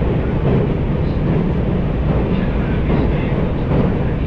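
Electric passenger train running at speed on the JR Tokaido Main Line, heard from inside the carriage: a steady low rumble of wheels on rail and running gear.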